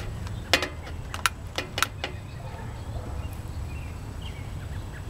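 A few short sharp clicks and knocks in the first two seconds, over a steady low rumble.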